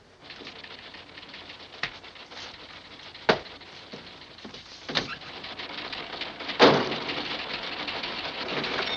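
Newsroom background: a steady clatter of typewriters and a teletype that grows gradually louder, broken by a few sharp knocks, the loudest about two-thirds of the way in.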